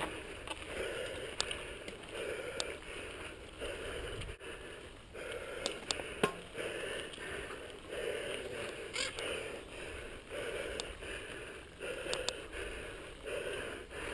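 Mountain bike rolling down a dirt trail: tyre noise on gravel and wind over the camera's microphone, swelling and fading about once a second, with scattered sharp clicks and rattles from the bike.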